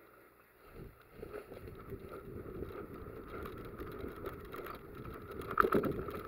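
Footsteps crunching through dry leaves and brush on the forest floor, with rustling from the player's gear and the moving camera. It starts about a second in and runs on steadily, louder for a moment about five and a half seconds in.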